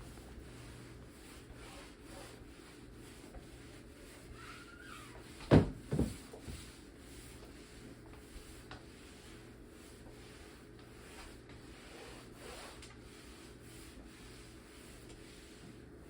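Wet mop rubbing in repeated strokes across a kitchen floor, with two loud knocks about five and a half seconds in.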